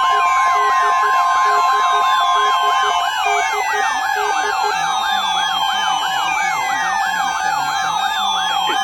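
Several electronic siren and alert tones layered together. A fast warbling yelp runs about three times a second, and a slower wail falls in pitch about every three seconds. A steady high tone and a pulsing lower beep both stop about three seconds in, and a low wavering tone joins about a second later.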